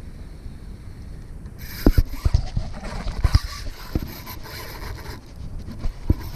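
Handling noise: a gloved hand and sleeve rubbing and bumping against a body-mounted camera as an angler strikes and fights a fish on a spinning rod and reel, a scratchy rustle with irregular dull knocks starting about a second and a half in, over light wind rumble.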